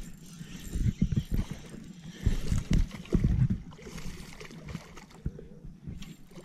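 A hooked fish thrashing and splashing at the water's surface beside the boat, amid irregular dull low thumps.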